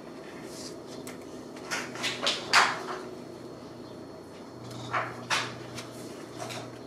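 Scissors snipping through a yellow paper sheet: a run of quick cuts about two seconds in, the last of them the loudest, and two more cuts about five seconds in.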